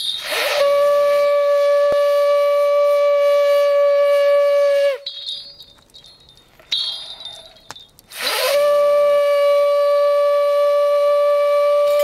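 A horn blown in two long held notes, each about four and a half seconds, starting with a quick rise in pitch and sagging slightly as it stops. Small bells jingle in the pause between the two notes.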